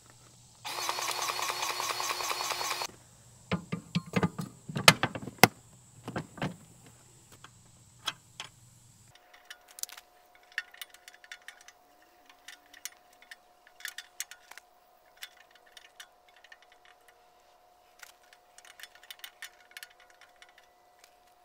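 A battery-powered grease gun's motor runs steadily for about two seconds, pumping grease into a tractor loader pivot's grease zerk. A few sharp clicks and knocks of its metal coupler follow. Later come scattered light metal clicks and taps as the coupler is worked onto a flail mower's grease zerk, which it won't grab.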